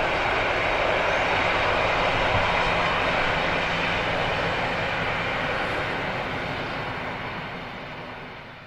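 Passenger train of vintage coaches rolling past at speed, a steady rushing rumble of wheels on rails with a low drone from the diesel locomotive hauling it. It fades away near the end as the last coaches pass.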